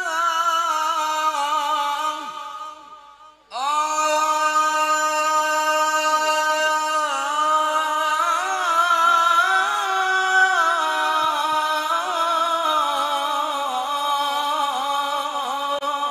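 A male voice singing an unaccompanied Arabic suluk in a high register through a microphone and PA, holding long notes ornamented with wavering melismatic turns. One phrase trails off about two and a half seconds in, and after a short breath a new long held phrase starts about a second later.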